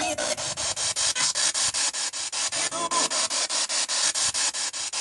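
Spirit box sweeping through radio stations: hissing static chopped into rapid even bursts, about eight a second, with a brief voice-like snatch about three seconds in.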